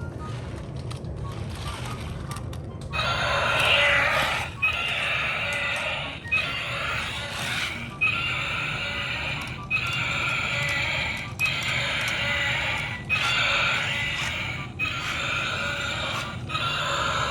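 Toy dinosaur truck's built-in speaker playing a looped animal-like sound effect, starting about three seconds in and repeating about every 1.7 seconds; a low steady hum before it.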